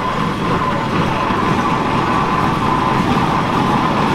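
Steam traction engine running under way, a steady mechanical rumble that grows slightly louder, with a thin steady tone above it.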